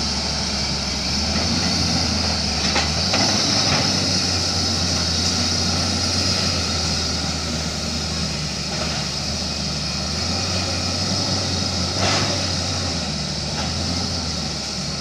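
Diesel engine of a digging machine (backhoe loader or excavator) running steadily, its note changing as the load shifts about 3 s and 12 s in, with a few short knocks from the machine at work.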